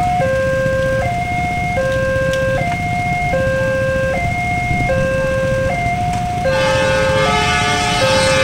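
Railway level-crossing warning alarm sounding an alternating two-note chime, switching between a higher and a lower note about every two-thirds of a second, over idling motorcycle engines. About six and a half seconds in, a train horn comes in, louder, over the chime.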